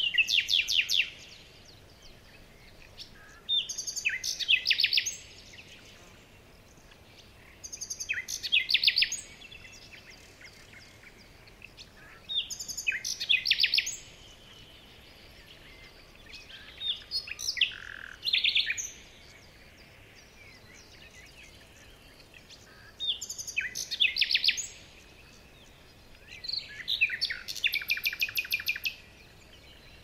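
A small songbird singing: short phrases of rapid, high-pitched trills repeated about every four seconds.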